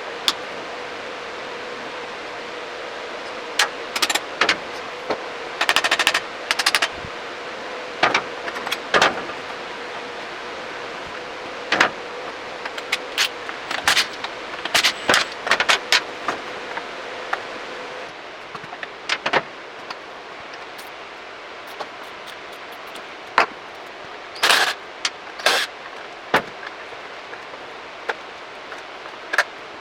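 Hand tools and motorcycle parts being handled while a front mudguard is worked on: scattered sharp metallic clicks and knocks, with a short run of rapid clicks about six seconds in. Under them is a steady hiss with a faint hum that stops about two-thirds of the way through.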